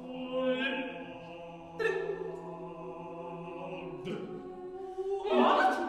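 Eight-voice a cappella ensemble singing contemporary vocal music: several voices hold sustained pitches, with new consonant attacks about two seconds in and again near four seconds. A loud hissing burst comes near the end.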